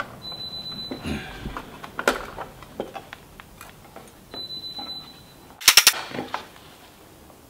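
Small metallic clicks and knocks as the steel pin, springs and frame of a DOC200 trap are worked by hand into alignment, with a quick burst of several sharp metal clicks about five and a half seconds in.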